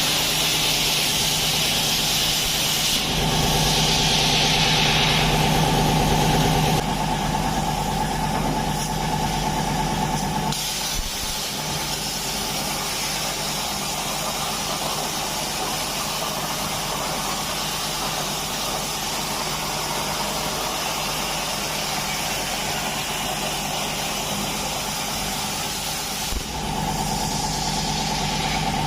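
CNC laser cutting machine running while it cuts sheet metal: a steady mechanical hum with a hiss over it. Its tone shifts a few times, louder and fuller for a few seconds about three seconds in, then settling lower until near the end.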